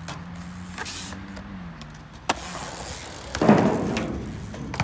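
Bike on a concrete skatepark ledge: a sharp knock a couple of seconds in, then a loud scraping rush of the bike on the concrete that fades over about a second. Under it runs the steady hum of a car engine, rising in pitch early on.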